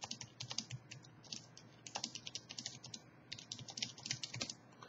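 Typing on a Logitech K750 wireless solar keyboard: quick runs of light, plastic-on-plastic key clicks with short pauses between them.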